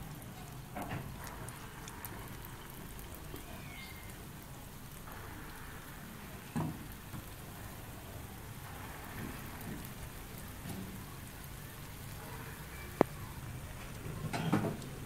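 Urad and moong dal batter fritters deep-frying in hot oil: a steady crackling sizzle, with a few sharp clicks over it.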